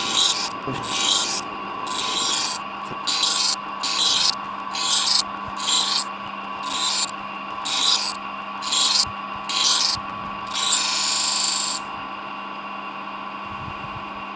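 A small electric sharpening wheel runs with a steady motor hum while the VG10 steel blade of a Spyderco SuperLeaf knife is pressed against it in short grinding passes, about one a second, to even out the edge bevels. The last pass is longer, and the grinding stops about twelve seconds in while the motor keeps running.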